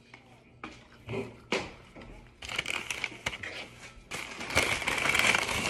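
A paper fast-food bag crinkling and rustling as it is handled and opened, with scattered crackles at first and a denser, louder crinkling from about four seconds in.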